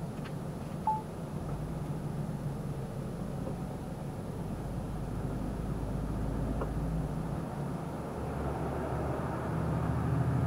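Lorry's engine and road noise heard from inside the cab, a steady low hum that slowly grows louder as the truck speeds up onto the motorway, with one short beep about a second in.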